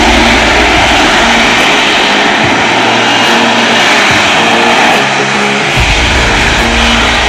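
Harrier jump jet's Pegasus turbofan running as it hovers: a loud, steady jet roar.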